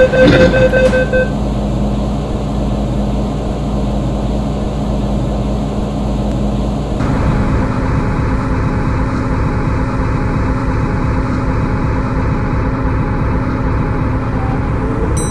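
MTR M-Train electric multiple unit, with the door-closing warning beeps dying away about a second in. The train's running noise steps up about seven seconds in, as the train pulls out of the platform, and then holds steady.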